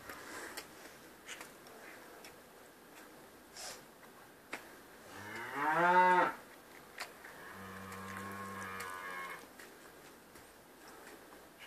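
Young calf mooing twice: a loud bawl that rises in pitch about five seconds in, then a softer, lower, steadier moo lasting nearly two seconds.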